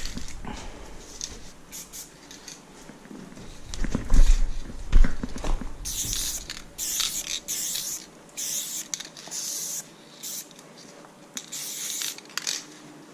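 Aerosol spray paint can sprayed in a series of short hissing bursts, after a few low handling thumps.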